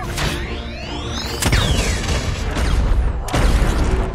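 Film sound design for a giant robot's weapon over orchestral score: two rising mechanical whines with metallic clanks, then about halfway through a run of heavy impacts and explosions.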